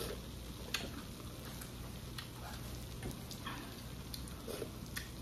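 Close-up eating sounds: quiet chewing with a few light clicks of metal chopsticks and spoon, over a low steady hum.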